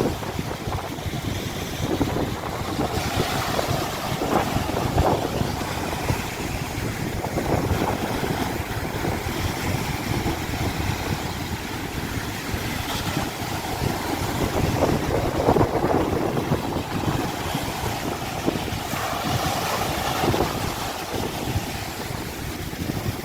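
Wind buffeting the microphone over the steady wash of sea surf, with gusts rising and falling.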